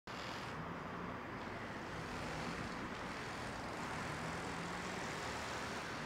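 Caterpillar 966F wheel loader's diesel engine running with a steady low drone as the loader tips a bucket of dirt onto a pile.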